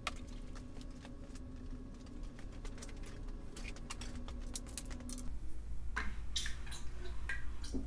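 Faint irregular clicking and gurgling inside an LS V8 as pressurised oil fills the oil galleries and air purges out, over a faint steady hum that stops about five seconds in. Near the end, a few knocks as a wrench is fitted onto the crankshaft bolt.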